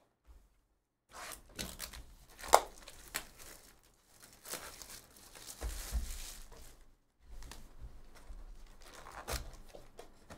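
Plastic shrink wrap being torn and crinkled off a sealed box of trading cards in several runs of crackling rips, starting about a second in. One sharp snap, about two and a half seconds in, is the loudest moment.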